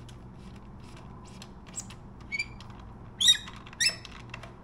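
Ratchet wrench clicking in light, fairly regular ticks while snugging the motorcycle's sprocket cover bolts. From about two seconds in there are four or five short, high squeaks or chirps, the loudest sounds here.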